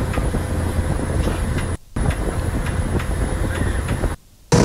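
Steady rumbling noise of a speeding motorboat, its engine mixed with wind buffeting the phone's microphone, cutting out abruptly twice for a moment.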